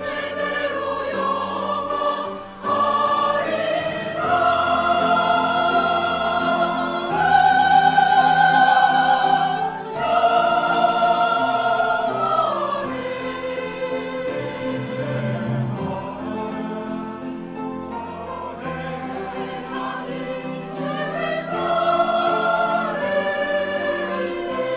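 Church choir singing a sacred anthem in long, held phrases, with a short breath break about two seconds in and the fullest, loudest notes in the middle before it eases off.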